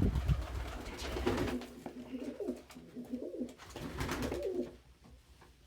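Domestic pigeons cooing: a run of low, wavering coos from about a second in until near the end. A loud thump at the very start.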